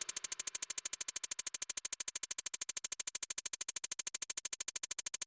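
Electronic background music thinned to a fast, even synth pulse, about fifteen short beats a second.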